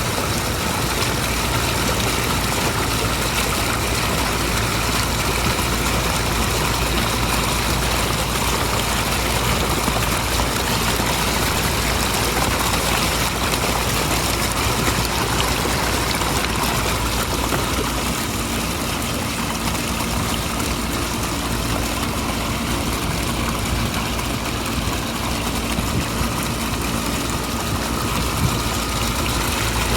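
Backyard pondless waterfall running, a strong stream of water pouring steadily down the rocks, over a steady low rumble.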